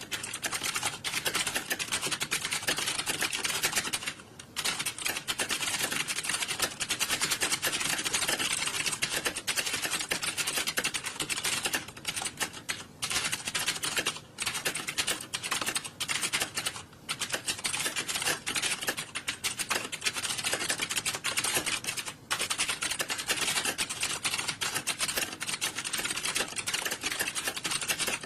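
Many computer keyboards being typed on at once in an exam hall, a dense, continuous clatter of overlapping key clicks with a few short lulls.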